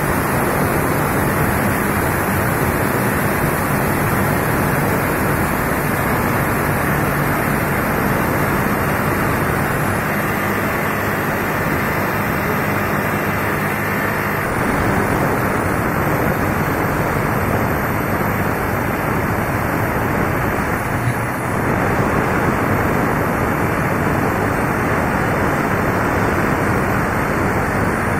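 Electric rotary hammers chiselling into concrete, a loud continuous clatter of breaking concrete that carries on without a break.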